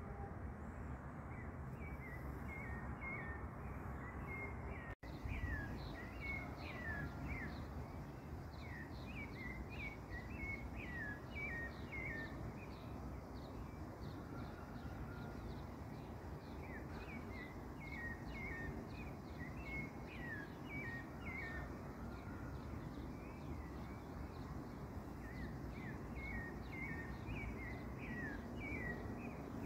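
Night-time outdoor ambience: a steady low background noise with repeated runs of short, high, falling chirps from a small calling animal. The sound cuts out for an instant about five seconds in.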